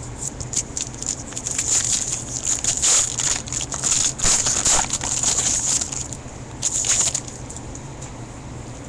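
Wrapper of a 2013 Topps Series 2 baseball card pack crinkling and tearing as it is opened by hand: an irregular crackle for about seven seconds that settles down near the end.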